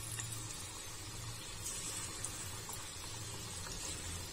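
Battered potato pakoras deep-frying in hot oil in a steel pan: a steady, fairly quiet sizzle and bubbling, with a few faint crackles as a fresh coated slice goes into the oil.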